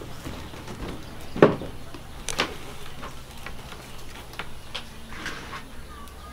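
Two sharp clicks about a second apart, followed by a few fainter ticks over quiet room tone, with faint bird chirps near the end.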